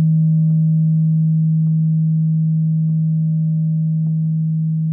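Singing bowl ringing with a deep, steady hum and a few fainter overtones above it, slowly fading, with faint light ticks about once a second.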